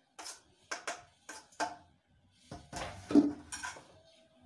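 A kitchen knife scraping chopped food off a chopping board into a steel cooking pot in several short strokes, then a louder clatter of kitchenware about three seconds in.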